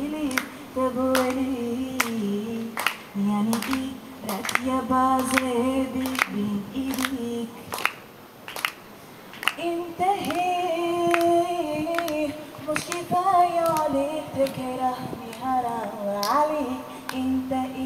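Female singer singing a slow song, holding long notes, with sharp percussive clicks sounding alongside the voice.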